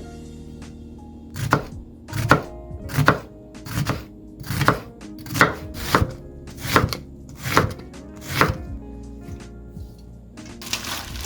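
Kitchen knife chopping on a cutting board: about ten slow, evenly spaced strokes, under background music.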